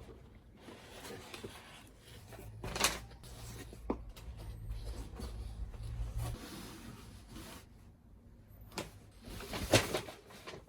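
Household handling sounds: rubbing and rustling with a few sharp knocks, over a low hum that stops about six seconds in.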